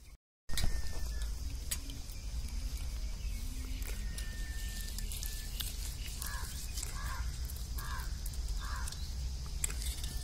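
Rural outdoor ambience: a bird gives four short calls, evenly spaced a little under a second apart, in the second half, over a steady high insect hum and a low rumble. The sound drops out for a moment just after the start.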